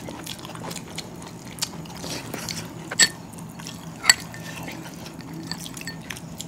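Eating by hand: soft chewing and fingers working rice on plates, with two sharp clinks of a spoon against the raita bowl, about three and about four seconds in.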